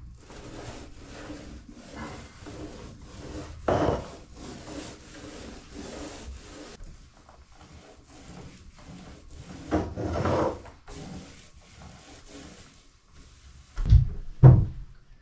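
Paintbrush stroking back and forth on wooden planking, about three strokes a second at first, then slower and more scattered. Two dull thumps near the end.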